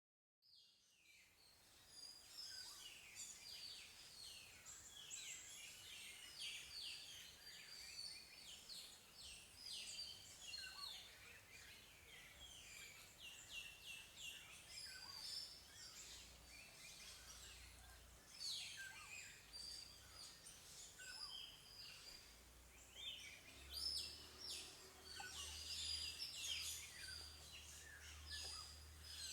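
Several small birds chirping and singing, many quick high calls overlapping one another, faint throughout.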